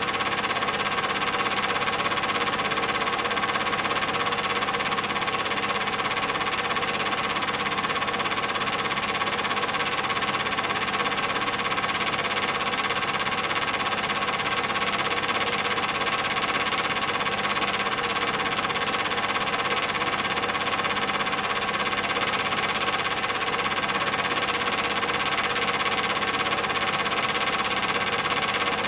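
Steady whirring clatter of a Super 8 film projector running, even in level and unchanged throughout.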